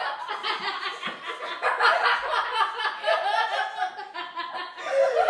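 A woman and three girls laughing together, several voices overlapping in continuous, choppy bursts of giggles and chuckles.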